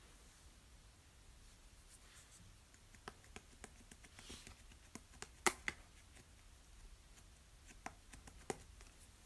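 Hands working a mixed slime: faint, scattered small clicks and pops, with one sharper pop about five and a half seconds in.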